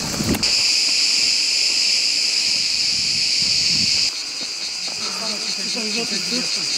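Cicadas buzzing in a continuous shrill chorus. The chorus drops a little in level about four seconds in and then has a faint pulse. Men's voices talk faintly near the end.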